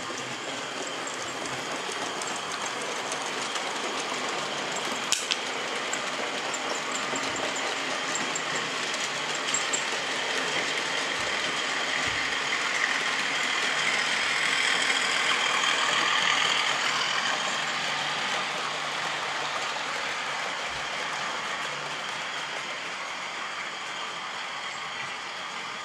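Model trains running on the layout: a steady whirring rattle of small wheels and motors on the track, swelling as a train passes close by around the middle and easing off after. A single sharp click about five seconds in.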